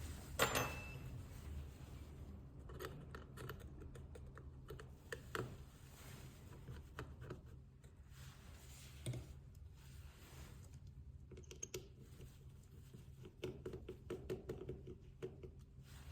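Small hand tools clicking and scraping on an iPhone XR's glass and frame while it is opened up for a battery replacement. There are scattered irregular clicks, the loudest about half a second in, over a low steady hum.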